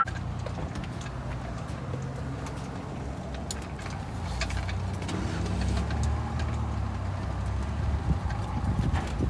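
Electric motor of a car-top wheelchair carrier running steadily as its chain hoists a folded wheelchair up to the roof, a low hum that strains a little in the middle, with a few light clicks. The carrier is working again after being repaired.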